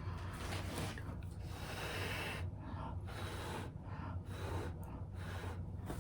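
A person blowing hard by mouth in repeated hissing puffs, pushing wet acrylic paint across a canvas in a Dutch pour, with short gaps between puffs to draw breath. A steady low hum runs underneath.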